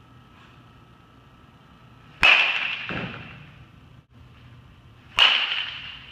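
A baseball bat striking a baseball twice, about three seconds apart: each hit is a sharp crack that rings on briefly in the room, and each is followed about a second later by a softer thud.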